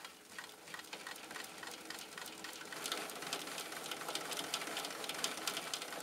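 Hand-crank generator made from a microwave oven transformer, with its magnet wheel spun past the core: a fast, steady rattle of fine ticks from the cranked wheel and its crank. It grows louder over the first three seconds as it spins up, then holds steady.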